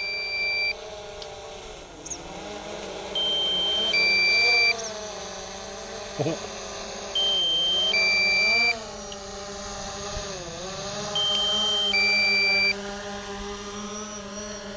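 Drone remote controller's low-battery alarm: a two-tone beep, a higher tone then a lower one, repeating about every four seconds while the aircraft battery is at about 14%. Under it the drone's propellers run steadily, their pitch rising and falling as the motors work against the wind, with a single knock about six seconds in.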